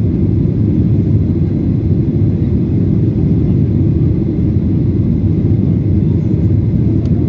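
Steady cabin noise of a Ryanair Boeing 737-800 in flight, heard inside the cabin from a window seat aft of the wing. Its CFM56-7B turbofan engines and the airflow make a deep, even rumble.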